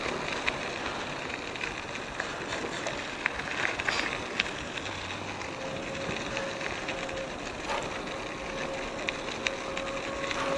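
Mountain bike tyres rolling over a gravel path: a steady crunching hiss scattered with small ticks from stones, picked up by a GoPro microphone under a foam windscreen.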